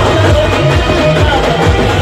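Banjo-party band music: a melody on the Indian banjo over a steady, driving drum beat.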